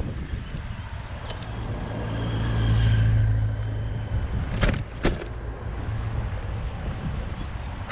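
A motor vehicle passing, its engine and tyre noise swelling to a peak about three seconds in and then fading, over a steady low rumble. Two sharp clicks about half a second apart come just after the middle.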